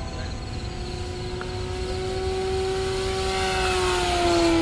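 Electric motor and propeller of an RC P-40 warbird whining steadily as the plane flies past. The whine grows louder and drops slightly in pitch near the end as the plane goes by.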